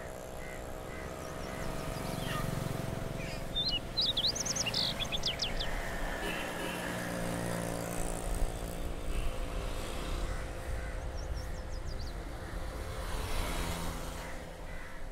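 Steady background hum of engines from road traffic, with birds chirping in two short bursts, a few seconds in and again about two-thirds through.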